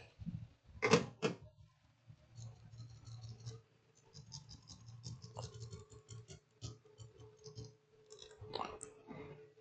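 Tools and small parts being handled on a workbench: two sharp knocks about a second in, then light clicking and rattling. A faint steady tone comes in about halfway and holds to the end.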